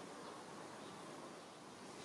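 Faint, steady outdoor background hiss among trees, with no distinct calls or knocks.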